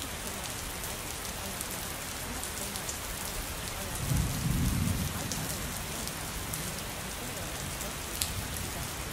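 Steady rain falling, an even hiss with scattered raindrop ticks, and a brief low rumble of thunder about four seconds in.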